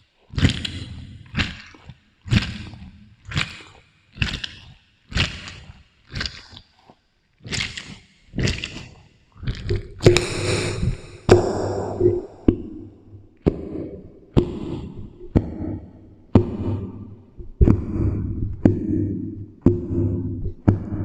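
Squishy fruit sounds made with a strawberry and a watermelon, about one a second, each stretched out by a heavy added echo effect. From about ten seconds in, a steady low drone sits under them.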